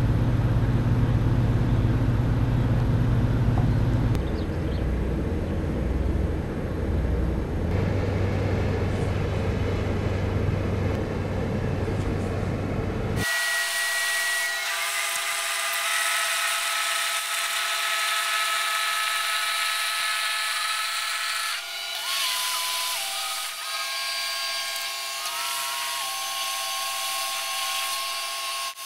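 Inland motor cargo barge's diesel engine running low and steady, its pitch shifting twice in the first few seconds as the throttle changes while manoeuvring. About a third of the way in the sound cuts abruptly to a high mechanical whine of several steady tones that step up and down in pitch, with no low rumble.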